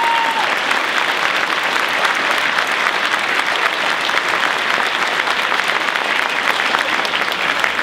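A large audience applauding steadily, the dense clatter of many hands clapping.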